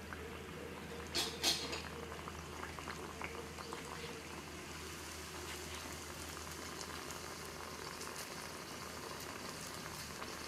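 Donut dough deep-frying in a kadai of hot oil: a steady bubbling sizzle with scattered small crackles, and two short knocks about a second and a half in.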